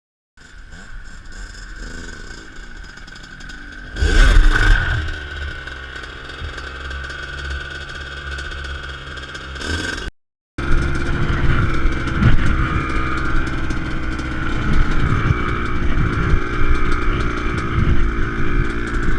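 Dirt bike engine running. It is revved hard about four seconds in and the pitch falls back, then after a short break it runs on steadily.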